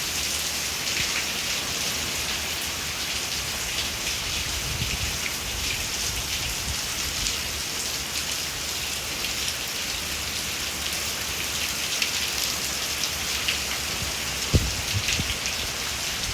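Steady rain falling, with gusty wind rumbling on the microphone. A single short thump near the end.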